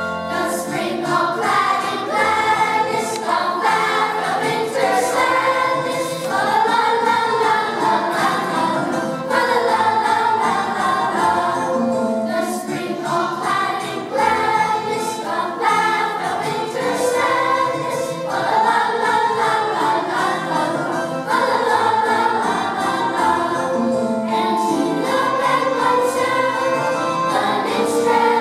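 Children's choir singing together.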